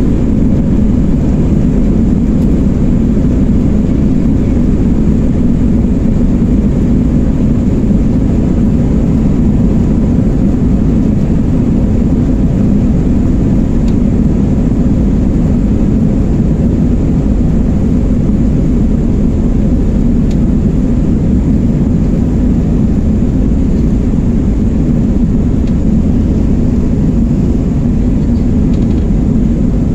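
Airbus A321-231's IAE V2500 turbofan engines at takeoff thrust with runway rumble, heard inside the cabin behind the wing during the takeoff roll: a loud, steady, deep rumble.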